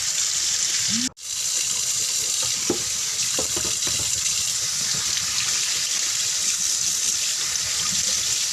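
Kitchen tap running steadily into a sink as black chicken feet are rinsed clean, with a brief sudden break about a second in.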